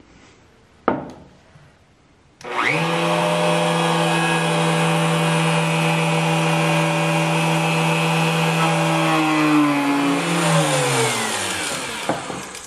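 Router in a router table fitted with a half-inch core box bit, switched on a couple of seconds in. It spins up to a steady high whine while the end of a hardwood cutting board is fed past the bit along the fence to rout a finger-grip recess. About ten seconds in it is switched off, and its pitch falls as it winds down. A single click comes about a second in, before it starts.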